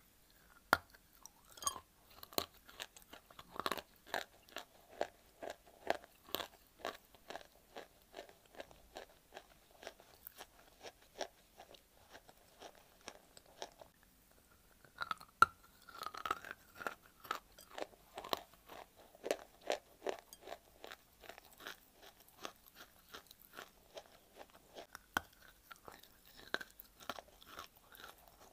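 A person biting and chewing a lump of dry white clay, with dense, crisp crunching as pieces crack off and are ground between the teeth. The crunching thins out for a moment about halfway through, then a sharp crack of a fresh bite sets it going again.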